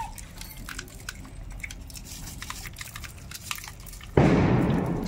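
Monkey chewing food, small irregular crackling and biting clicks. About four seconds in, a sudden loud rush of noise cuts in and fades over about a second.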